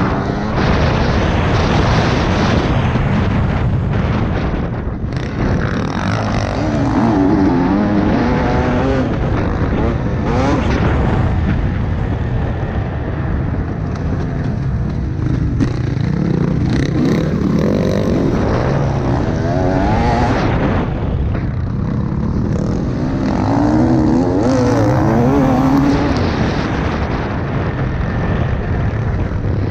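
2020 TM 300 EN single-cylinder two-stroke dirt bike engine being ridden hard, its pitch rising and falling over and over with the throttle. Wind noise buffets the helmet-mounted microphone.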